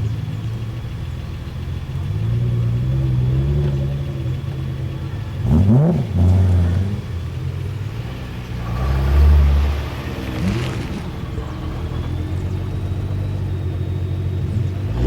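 Sports car engine idling low and steady, revved in quick blips twice: once about five and a half seconds in and again about nine seconds in.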